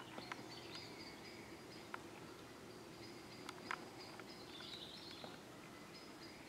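Faint dusk woodland ambience with a thin, high steady whine and a few chirp-like notes. Scattered small clicks and scuffs come from European badgers jostling and grooming at the sett entrance.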